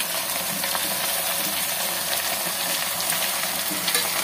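Raw chicken pieces sizzling in hot mustard oil in an aluminium pot on a gas stove: a steady frying hiss with faint crackles, as the chicken starts to sear.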